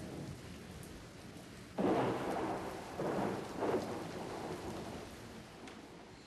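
Thunderstorm sound of steady rain with rolls of thunder that swell suddenly about two seconds in and twice more soon after, then die away.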